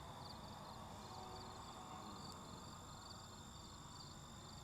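Crickets chirping faintly in a steady, even rhythm of about two chirps a second, over a faint steady high-pitched tone.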